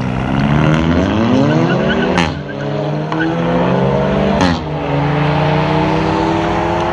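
Car engine at full-throttle acceleration in a street race, its pitch climbing through the gears. A short crack marks each upshift, about two seconds in and again about four and a half seconds in.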